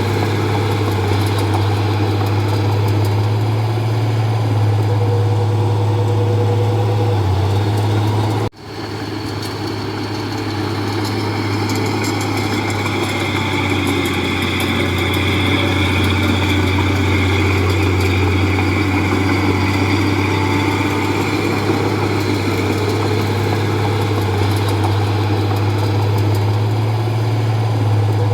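Diesel engine of a bulldozer running steadily with a deep, even hum. The sound drops out for an instant about eight seconds in, then comes back.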